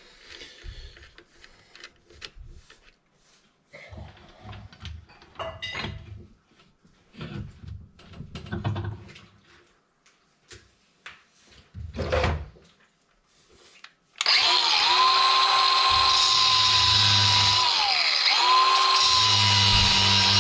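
Cordless angle grinder spins up about two-thirds of the way in and runs with a steady whine, its pitch dipping briefly as it bites into steel. Before it starts, scattered clanks and knocks of metal parts being handled.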